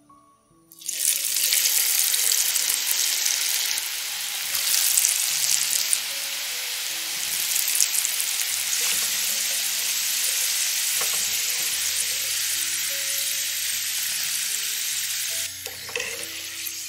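Potato fries dropped into hot vegetable oil, which bursts into a loud, steady sizzle about a second in. The frying hiss holds evenly, then eases near the end.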